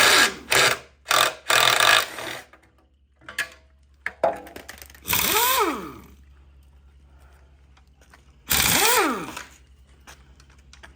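Impact wrench hammering in short bursts on the flexplate-to-torque-converter bolts: a quick run of bursts in the first two seconds, then three separate bursts, each rising and then falling in pitch, the last near the end.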